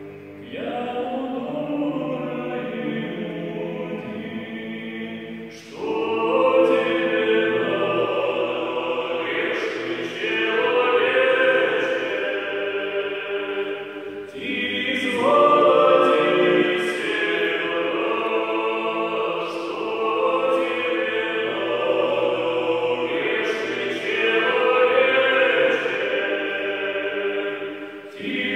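A male vocal trio sings an unaccompanied Russian Orthodox penitential song in harmony. It moves in long held phrases, with short breaks where new phrases begin about six and fourteen seconds in.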